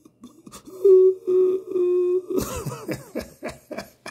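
A man's voice holds one long steady note for about a second and a half, then breaks into laughter, a quick run of short choppy laughs that lasts to the end.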